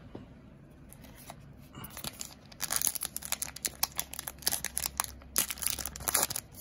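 Foil-lined trading-card pack wrapper being torn open and crinkled by hand, starting about two seconds in and getting louder.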